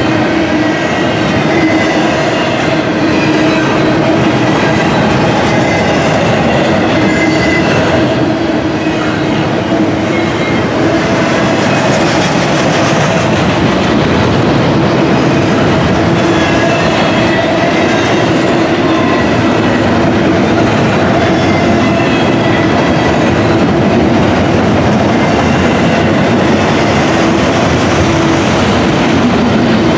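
Double-stack intermodal container cars of a freight train rolling past close by: a loud, steady rumble and rattle of steel wheels on rail, with a thin steady whine over it.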